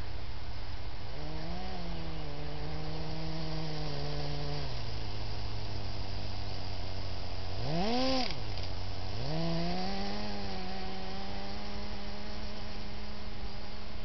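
Kyosho Blizzard radio-controlled snowcat's motors and gearboxes whining as it drives through snow, the pitch stepping and gliding up and down with the throttle. It is loudest about eight seconds in, where the whine sweeps up and back down as the snowcat comes close, over a steady hiss.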